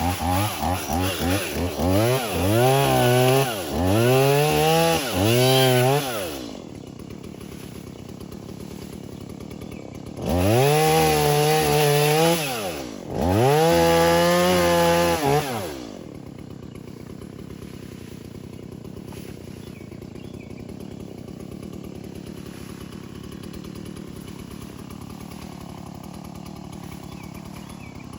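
Two-stroke chainsaw being revved in quick throttle blips, its pitch rising and falling several times over the first six seconds, then dropping to a quieter idle. It revs twice more a little before halfway, idles again for about twelve seconds, and revs once more at the very end.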